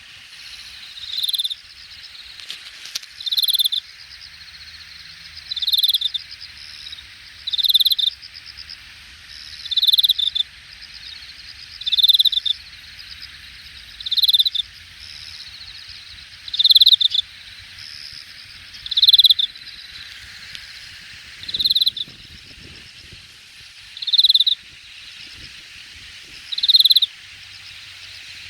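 Late-summer chorus of grass insects, a steady high trilling hiss, over which one louder insect call repeats about every two seconds, each call lasting about half a second.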